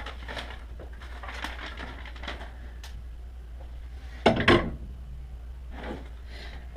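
Paper and tools being handled and rustled on a workbench, with two loud knocks in quick succession about four seconds in, over a steady low hum.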